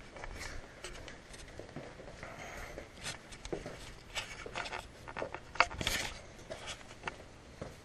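Scattered clicks, taps and rustles of small hardware and tools being handled, with one sharper click about five and a half seconds in.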